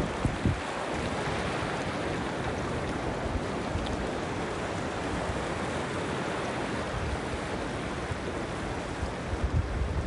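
Small waves breaking on the shore and shallow seawater washing around beach rocks, an even surf hiss. Wind buffets the microphone in low rumbles just after the start and again near the end.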